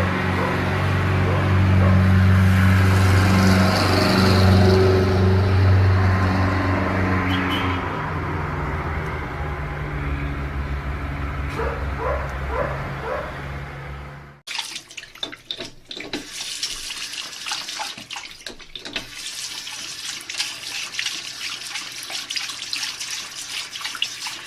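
A steady low hum with several held tones, then, after an abrupt cut about 14 seconds in, a water tap running and splashing into a sink.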